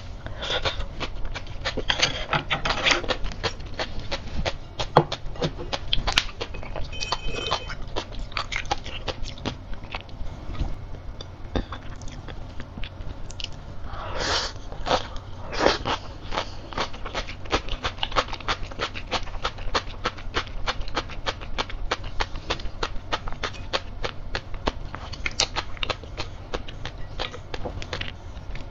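Close-miked chewing of crisp sea grapes: a dense, continuous run of tiny crunchy pops and crackles, with a few louder bites about two seconds in and again around fourteen to sixteen seconds in.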